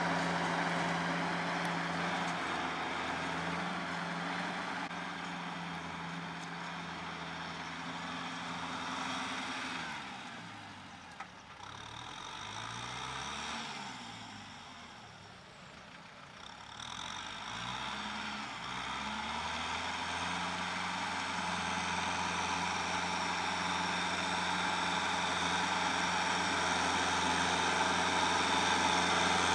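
Kubota L5018 tractor's four-cylinder diesel engine running steadily under load while pulling a rotary tiller through the soil. The sound fades for several seconds midway, with a wavering tone, then builds back to full strength.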